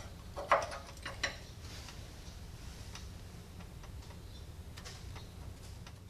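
A few light clicks and taps, the loudest about half a second and just over a second in, as a small steel plate is handled and test fitted against the steel frame of a tractor backhoe, over a faint low hum.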